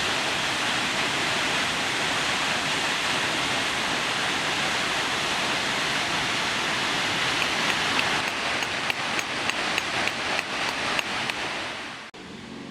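Steady rush of a waterfall. Over the second half, a run of sharp knocks at about three a second stops shortly before the sound cuts to acoustic guitar music near the end.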